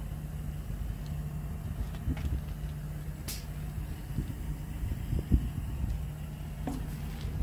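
Scania P truck's diesel engine idling steadily, with a few light knocks and clicks on top, the clearest about three and five seconds in.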